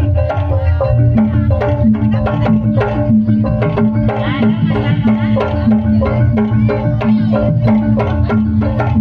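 Live jaranan (kuda lumping) ensemble music: a kendang hand drum plays quick, dense strokes over a steadily repeating pitched note and other tuned percussion.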